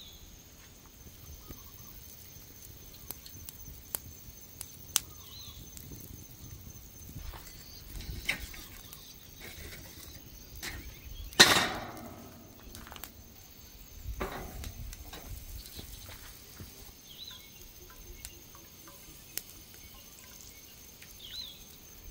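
Faint outdoor background with scattered light clicks and knocks, and one loud clatter about halfway through, with a smaller one shortly after, during handling around a charcoal kettle grill with its fire lit.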